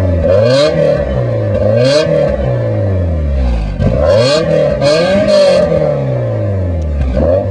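BMW E30 M3's S14 four-cylinder engine revved through an aftermarket exhaust, about five quick blips that rise and fall back toward idle.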